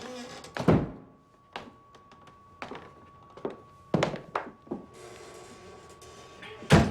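A string of about eight heavy, unevenly spaced thuds in a small echoing room, the loudest near the end. Under them runs a thin, steady high ringing tone that becomes plainer about four seconds in: a hotel front-desk bell left ringing.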